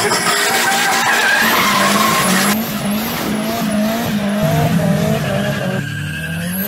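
Car engine revving hard with tyres squealing in a burnout, the pitch rising and falling over and over. The sound changes abruptly twice, about two and a half seconds in and near the end, as one clip gives way to another.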